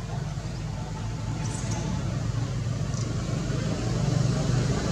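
A motor vehicle's engine running nearby, a low steady hum that grows louder toward the end.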